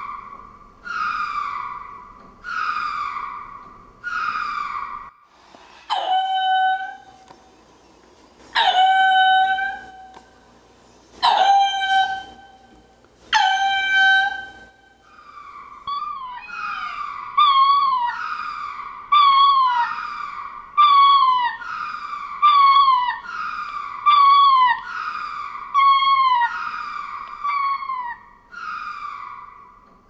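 Ring-tailed lemurs calling: a run of short cries falling in pitch, about one a second, then from about six seconds in four longer calls held at one pitch, a couple of seconds apart. After about fifteen seconds comes a quicker series of wavering, falling cries, some overlapping, about one and a half a second.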